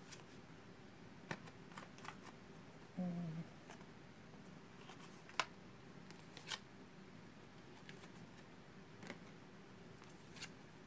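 Tarot cards from the John Holland Psychic Tarot of the Heart deck being drawn and set down on a slatted stand: faint scattered clicks and taps of card stock, the sharpest about five seconds in. A brief low hum about three seconds in.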